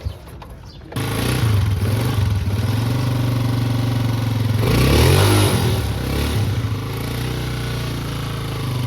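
Motorcycle engine running at idle from about a second in, revved once briefly near the middle and settling back to idle. It is the kind of engine knock that may come from a worn cam gear.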